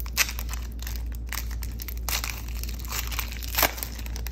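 Foil wrapper of a Donruss football card pack being torn open and crinkled by hand: a run of sharp crackles, the loudest about a quarter second in and again near the end.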